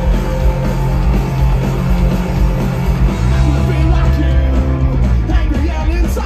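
Punk rock band playing live, with electric guitars, bass guitar and drums at full volume.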